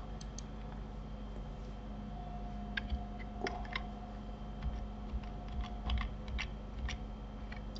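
Scattered clicks of a computer keyboard and mouse, a few at a time with pauses between, over a steady low electrical hum.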